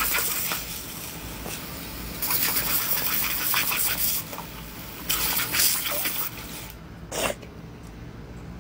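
Garden hose spray nozzle on its jet setting, water hissing out in a hard stream. It swells in louder spells about two and five seconds in, eases off after six and a half seconds, and gives one brief spurt near seven seconds.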